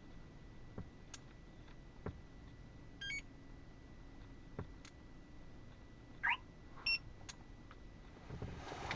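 Car-alarm key-fob pairing signals: a few soft button clicks, a short rising electronic beep melody about three seconds in, then a falling chirp and a short beep after about six seconds, the alarm system responding as the StarLine B9 fob is programmed in.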